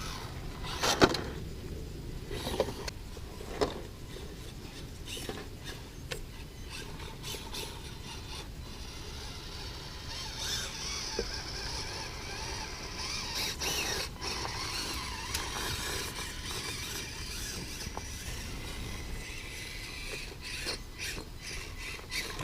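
Axial SCX24 Deadbolt 1/24-scale RC crawler's small electric motor and gears whining as it crawls over rocks, with a few sharp knocks in the first few seconds as it bumps and drops on the rocks. The whine grows louder and higher for several seconds around the middle.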